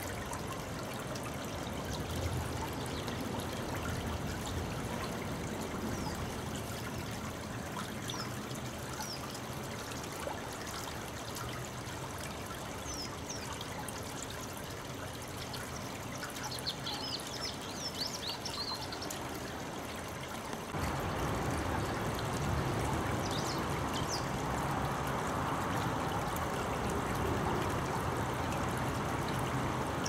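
Shallow river water rippling and trickling over stones, a steady rush that steps up louder about two-thirds of the way through.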